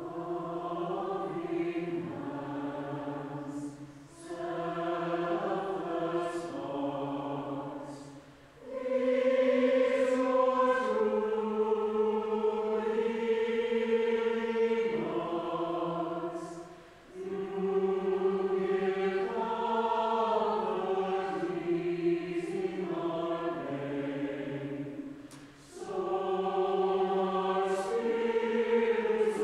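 Mixed church choir singing a slow, sustained choral song in English, coming in at the start and singing in long held phrases with brief breaths between them.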